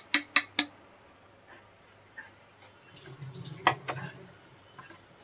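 A few sharp taps near the start, as ground roti powder is added to a kadhai of caramelised sugar. About three seconds in, a wooden spatula scrapes and stirs the crumbly mixture against the pan for a moment.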